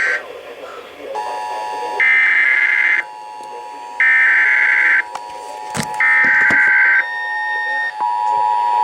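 Emergency Alert System SAME header: bursts of digital data tones, each about a second long and repeating every two seconds, encoding a severe thunderstorm warning. Underneath is the steady two-tone EAS attention signal, which gets louder about eight seconds in as the header ends.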